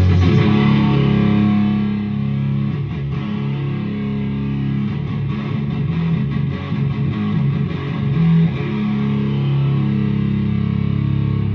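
Electric guitar played through an Evil Twin fuzz pedal into a clean amp, with its germanium fuzz cascaded into its silicon fuzz: distorted chords and riffs, the notes held and sustaining.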